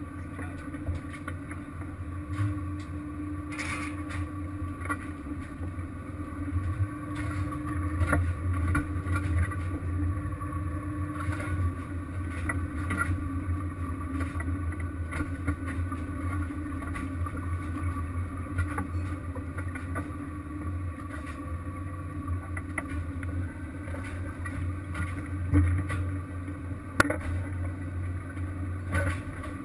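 Steady drone of a crab-fishing vessel's engine and deck machinery, with scattered clicks and knocks and one sharp knock near the end.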